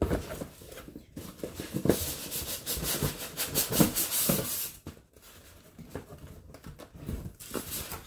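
Clear plastic bag around a blender pitcher crinkling and rustling as it is handled, on and off, loudest from about two to five seconds in.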